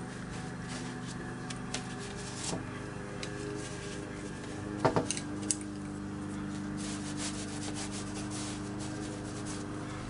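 Watercolour brush rubbing and scratching on textured paper in short strokes, with a quick cluster of clicks about five seconds in as the brush knocks against the paint palette. A steady low hum runs underneath.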